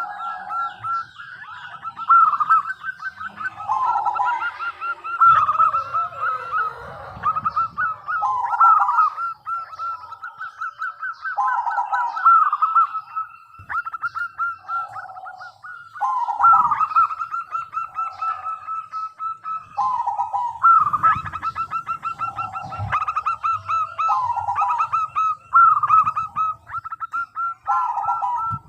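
Zebra doves (perkutut) cooing: long runs of rapid, rattling staccato coo notes repeated over and over, with calls overlapping one another.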